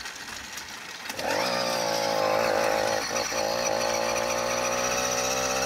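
Small two-stroke motorized-bicycle kit engine catching about a second in as it is bump-started by letting out the clutch while rolling, then running steadily with a buzzing note. Before it fires there is only wind and rolling noise.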